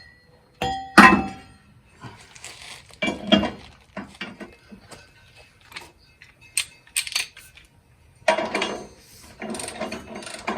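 Steel hand tools and drawbar hardware clinking and knocking against each other, with sharp metal strikes about a second in and around three seconds. From about eight seconds in, a rapid, steady mechanical clicking like a ratchet wrench working a bolt.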